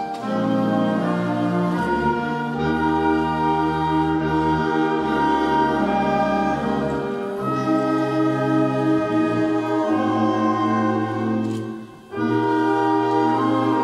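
A student wind band playing: held chords of flutes and brass over a tuba bass line. Near the end the band breaks off for a moment and comes back in together.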